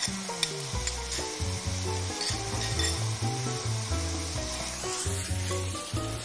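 Diced onion, green bell pepper, celery and garlic sizzling steadily in hot oil in a stainless steel pot, with a few light clicks. Soft background music with a bass line plays underneath.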